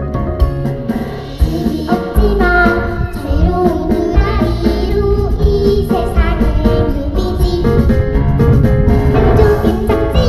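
Two young girls singing a Korean children's pop song together into microphones over a backing track with a steady beat and bass; their voices come in strongly about two seconds in.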